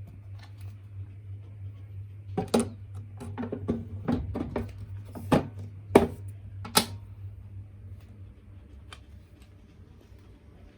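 A steady low hum with a cluster of sharp clicks and knocks from about two to seven seconds in, the loudest knock near the six-second mark.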